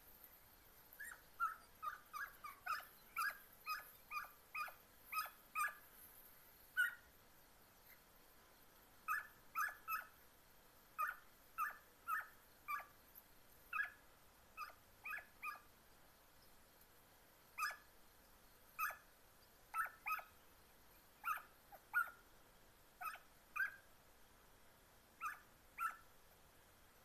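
Segugio italiano hounds giving tongue while trailing scent: many short, high-pitched yelping barks in quick runs, with brief pauses between the runs.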